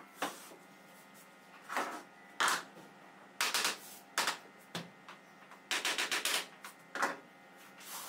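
Laminate floor planks being tapped and knocked into place over foam underlay: a string of sharp, irregular knocks, with a quick run of about six taps around six seconds in.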